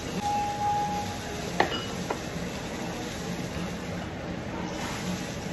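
Steady restaurant background hiss and hum. A brief steady tone lasts about a second near the start. About a second and a half in comes a sharp clink of chopsticks or tableware against a dish, then a lighter one half a second later.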